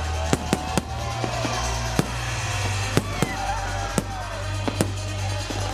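Fireworks bursting overhead with sharp bangs, roughly one a second and a quick cluster of three near the start, over music with a steady bass.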